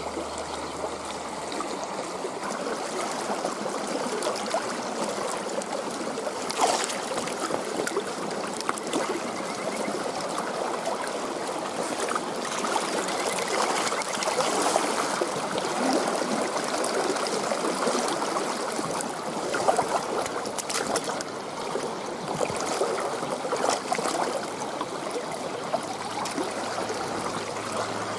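Shallow stream water running steadily over the bed, with a few brief sharper sounds, the clearest about six and a half seconds in.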